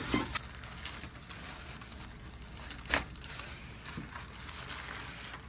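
Rustling and crinkling of a patient shifting on a chiropractic treatment table, with one sharp click about three seconds in and a fainter one about a second later.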